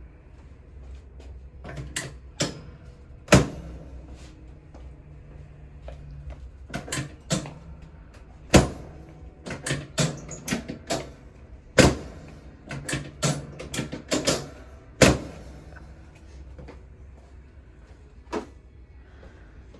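Chiropractic adjusting equipment giving a string of sharp clacks and knocks at irregular intervals, about eighteen in all, four of them much louder than the rest, over a low steady hum.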